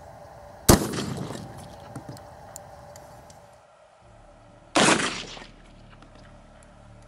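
Shotgun firing a short 12-gauge pumpkin-ball shell with a 1 1/8 oz lead ball. There are two loud blasts about four seconds apart, each trailing off in a short rolling echo.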